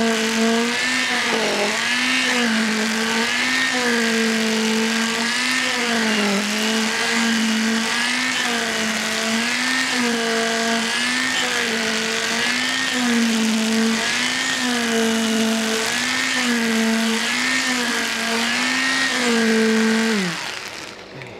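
Electric concrete poker vibrator running while it compacts freshly poured concrete in ring beam formwork, its motor hum wavering up and down in pitch as the poker is worked. Near the end it winds down with a falling pitch.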